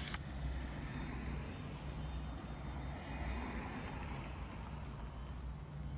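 Tractor engine running steadily while a tractor-mounted rotary steel-wire brush weeder scrubs along a pavement curb: a low engine drone under a hazy brushing noise. A brighter high hiss cuts off abruptly just after the start.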